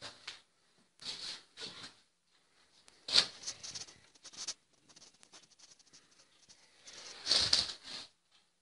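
Irregular rustling and scraping from things being handled, with a sharper knock about three seconds in and a louder scrape or knock around seven seconds in.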